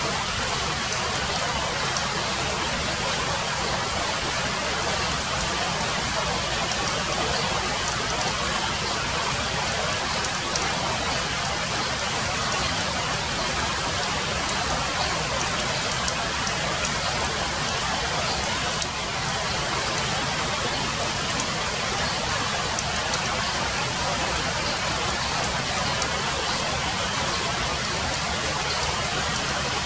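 Steady rain falling on broad leaves, with faint scattered ticks of single drops.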